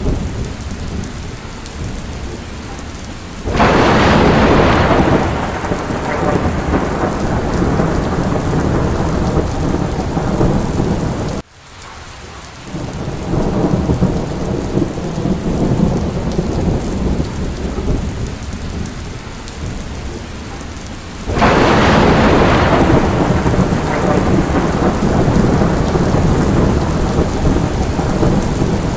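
Steady rain during a thunderstorm, with two sharp claps of thunder, one a few seconds in and another about two-thirds of the way through, each fading into a long low rumble. About midway the sound cuts out for a moment before the rain and rumble come back.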